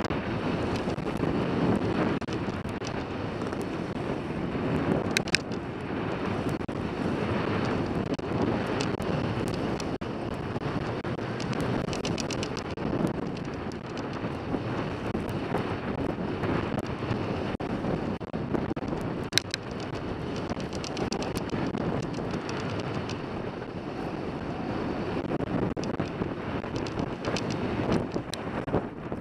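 Wind buffeting a helmet-mounted camera's microphone during a downhill ski run, mixed with the steady hiss of skis on packed snow, and a couple of sharp clicks.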